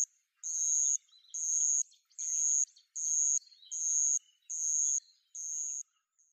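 A series of high-pitched chirping calls, seven in a row, each about half a second long and coming a little faster than one a second, with silence between them.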